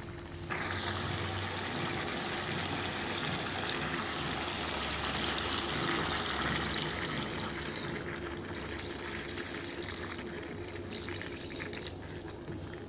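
Water pouring in a steady stream into a pan of browned chicken pieces and potatoes, added to the dry-fried curry to start it simmering. The pour starts about half a second in and stops near the end.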